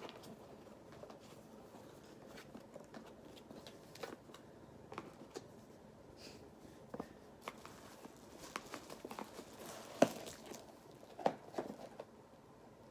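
Cardboard and plastic packaging being opened and handled: soft rustling and crinkling with scattered light clicks and taps, and one sharper knock about ten seconds in.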